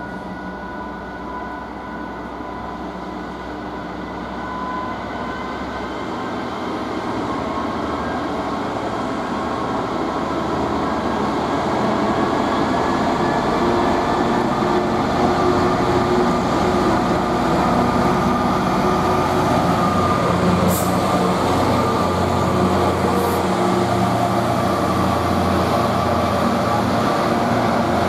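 Class 66 diesel-electric freight locomotive powering up: its two-stroke EMD V12 engine runs with a steady rumble and hum that grows louder over the first twelve seconds or so, then holds at full volume.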